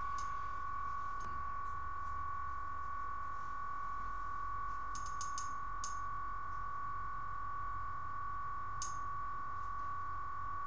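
A steady high-pitched whine, one constant tone, with a few faint short ticks about five seconds in and again near the end.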